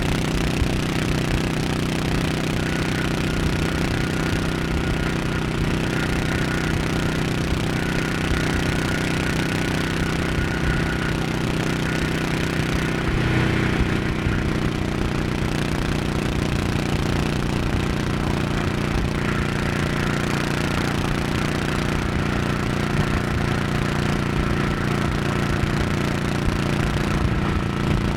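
Honda 1100 cc motorcycle engine running steadily at highway cruising speed, its note shifting briefly about halfway through.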